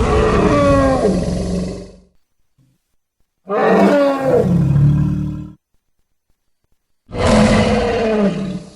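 Three designed creature roars, sound effects for the Ngoubou, a ceratopsian-like cryptid. Each roar lasts about two seconds, falls in pitch over a deep rumble, and a second or so of silence separates them.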